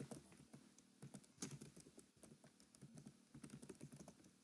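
Faint typing on a computer keyboard: light, irregular key clicks with short pauses between them.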